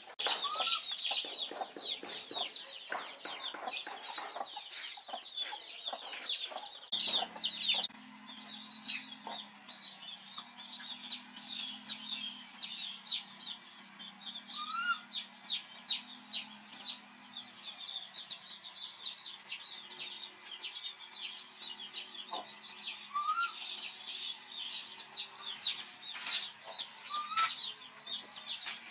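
Chickens and small birds chirping in a busy, continuous chatter of short high chirps. Rustling and handling noise in the first several seconds, and a faint low steady drone from about seven seconds in.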